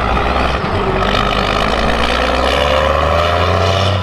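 Motor vehicle engine running, its pitch slowly rising as it revs up under a steady low drone.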